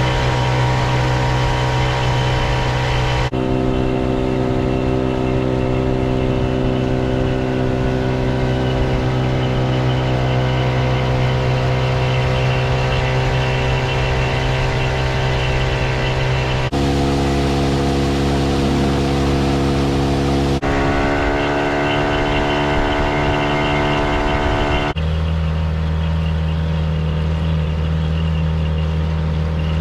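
Small boat outboard motor running steadily under way, a constant engine drone. Its pitch shifts abruptly several times.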